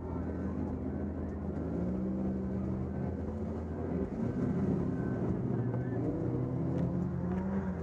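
Demolition derby car engine running, its pitch wavering up and down, a little louder about halfway through.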